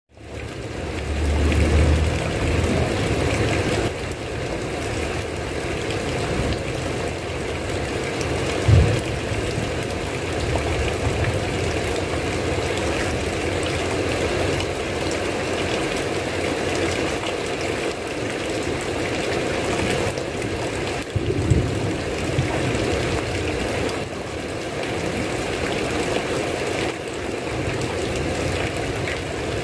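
Steady heavy rain fading in, with low thunder rumbles: a longer one a second or two in and short low thuds near nine seconds and again past twenty-one seconds.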